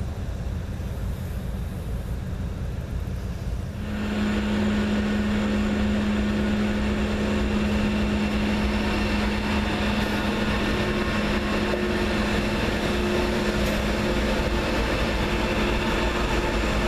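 CSX GE ES44AH diesel-electric locomotives (V12 engines) running as they pull a coal train slowly past. A low rumble gives way about four seconds in to a louder, steady engine drone with a held hum.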